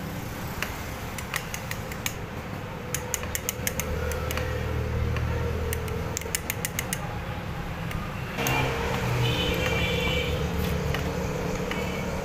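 Light metallic clicks and taps as a car piston, its gudgeon pin and a connecting rod are handled and fitted together by hand, some in quick runs of several clicks a second, over a steady low hum. From about eight seconds in, a louder rough noise joins.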